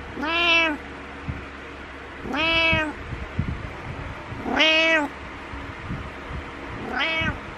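Domestic cat meowing four times, each meow about half a second long and arching up then down in pitch, the last one shorter; insistent wake-up meows asking for attention.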